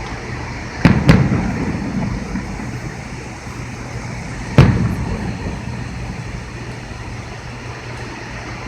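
Fireworks going off: two sharp bangs in quick succession about a second in, then a third about three and a half seconds later, each trailing off in a rumble.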